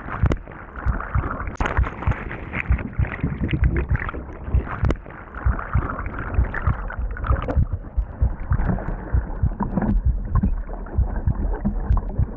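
Turbulent whitewater churning and gurgling, heard muffled through an underwater camera beneath a capsized kayak, with frequent dull low thumps and knocks.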